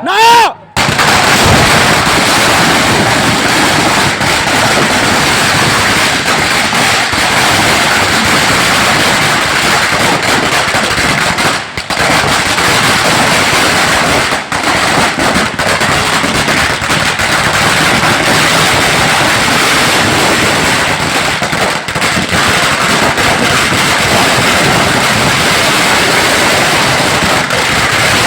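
Firecrackers going off in a loud, continuous rapid crackle, with a few brief lulls.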